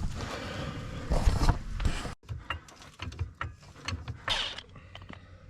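Rustling and handling noise, then after a sudden cut about two seconds in, a run of irregular sharp mechanical clicks and knocks, with a short noisy burst near the end.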